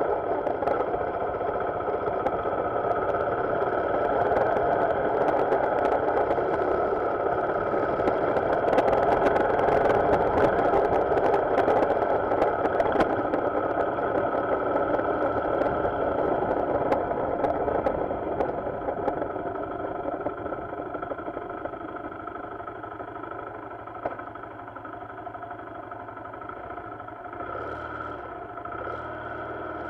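Motorcycle engine running steadily. It grows quieter about two-thirds of the way through.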